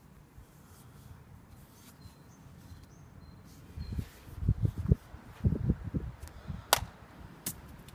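Low bumps of handling on the recording phone, then two sharp cracks about three quarters of a second apart near the end: a Nokia Lumia 800 smartphone thrown against a stone wall, striking it and bouncing.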